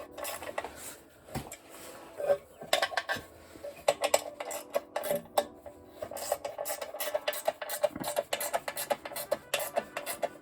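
Hand ratchet clicking and metal tools clinking while the skid plate's mounting bolts are snugged up, with quick runs of even ratchet clicks in the second half.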